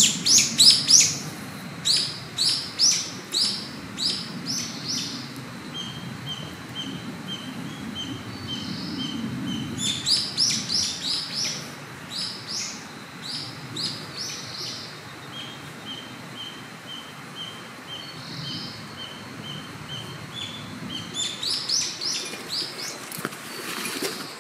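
Forest songbirds singing: a loud phrase of quick, high, falling notes comes three times, about ten seconds apart, and between phrases a steady string of short, even, lower notes repeats.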